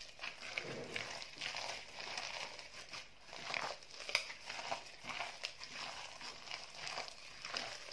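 A gloved hand kneading and squeezing a soft ground liver and bread mixture in a pot: irregular squelching and crinkling sounds in quick succession.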